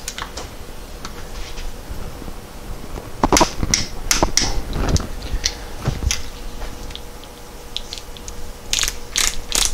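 Scattered clicks and clinks of metal hand tools working on a VW 020 transmission case while the Torx reverse gear shaft lock bolt is fitted and tightened. The clicks come in clusters a few seconds in and again near the end.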